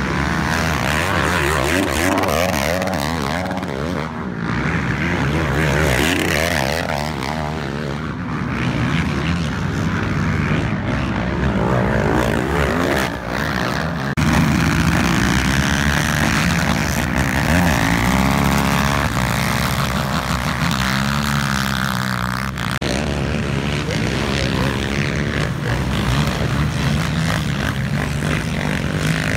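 Racing ATV engines revving hard and easing off as the quads power through the turns of a motocross track, the pitch climbing and falling again and again.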